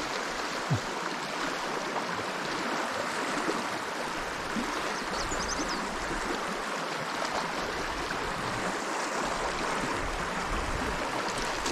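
A river flowing, a steady rush of water.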